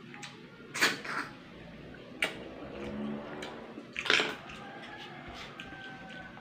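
Close-up mouth sounds of eating snails and rice by hand: three loud wet slurps and smacks, about a second in, a little after two seconds and around four seconds, with softer smacking and chewing clicks between.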